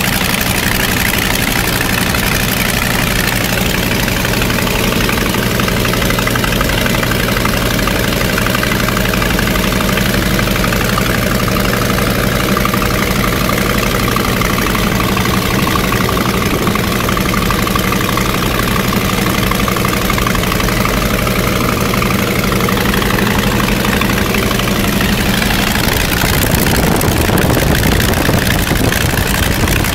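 Polikarpov Po-2 biplane's five-cylinder Shvetsov M-11 radial engine running steadily in cruise, heard from the open cockpit together with the rush of the slipstream. About four seconds before the end the engine note turns rougher and slightly louder.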